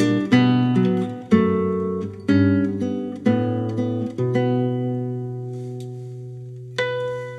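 Solo nylon-string classical guitar made by Kim Sang Gil, playing a slow phrase of plucked chords about once a second. One chord is then left ringing and fading for over two seconds before a new chord is struck near the end.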